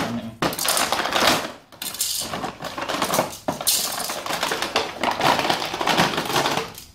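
Stiff clear plastic packaging tray crackling and rattling as plastic toy train track pieces are worked out of it and clatter against each other, in a dense run of clicks.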